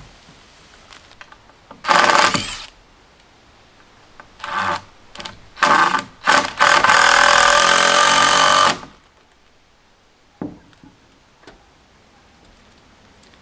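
A power tool run in several short bursts, then one steadier run of about two seconds.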